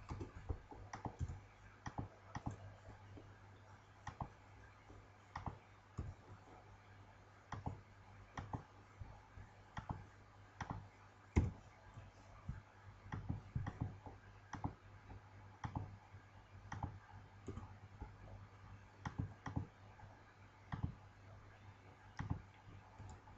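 Irregular clicks of a computer mouse and keyboard keys, some in quick pairs, over a faint steady low hum.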